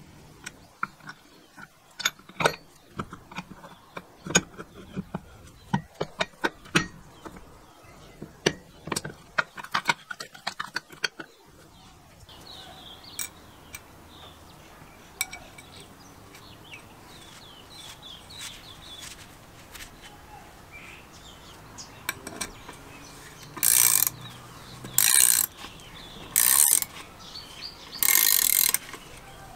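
Light metallic clicks and taps as small parts of a manual chain hoist are fitted onto its hub by hand. Near the end comes a ratchet wrench, clicking in four short runs of about a second each as bolts are run into the hoist's steel side plate.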